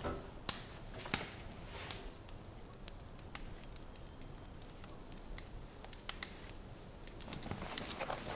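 Ram's head and fleece being handled: soft rustling of fur and hide with scattered small clicks and knocks, a few louder ones at the start and about a second in, and more rustling near the end.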